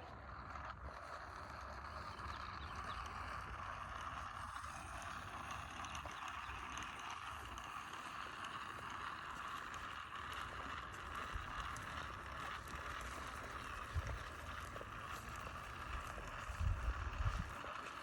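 Handheld broadcast seed spreader whirring steadily as it throws out red clover seed. A few low thumps come near the end.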